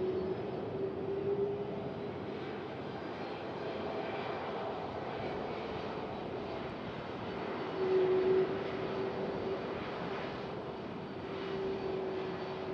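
Jet airliner's engines running: a steady rushing noise with a humming tone that comes and goes, loudest about eight seconds in.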